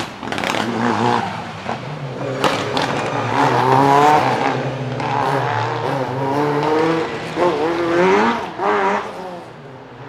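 Talbot Avenger rally car's engine revving hard, its pitch climbing and falling several times as the driver shifts gear and lifts off through a tight section. Sharp cracks come about half a second and two and a half seconds in.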